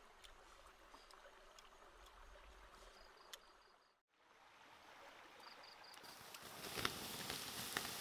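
Faint running water from a stream, with a few short high insect chirps. The sound cuts out for a moment, then returns louder as a steady hiss with occasional sharp cracks.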